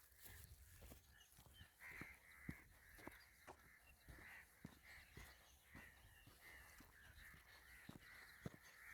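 Faint, repeated crow calls, with footsteps on a path at an even walking pace of about two steps a second.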